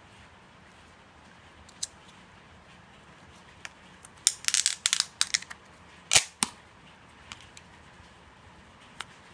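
Slime being handled, giving off a scattered run of sharp pops and crackles. There is a single pop about two seconds in, then a quick burst of crackling, two loud pops, and a few faint clicks near the end.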